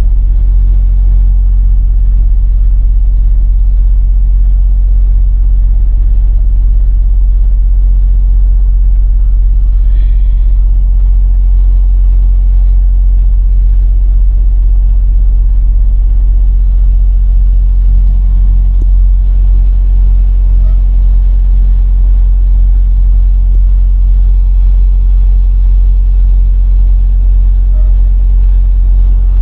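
Semi-truck's diesel engine running at low speed, heard from inside the cab: a steady, loud low rumble.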